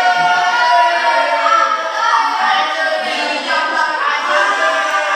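A group of voices singing together, many pitches sounding at once, without a break.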